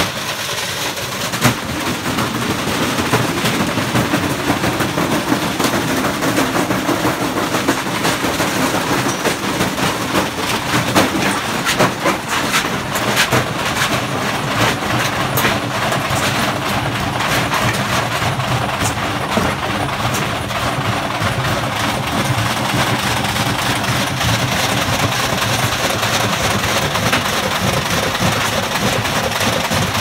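A Candy Grand'O Plus GOF 472 and a Hoover OPH616 washing machine spinning with bricks in their drums: a loud, continuous clattering and banging as the bricks pound round the drums and the unbalanced machines shake themselves apart, with heavier bangs scattered through as the machines come down onto the ground and break up.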